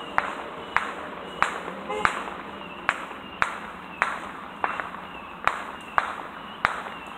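A steady series of sharp clicks or taps, roughly three every two seconds at a slightly uneven pace, each with a short ringing tail.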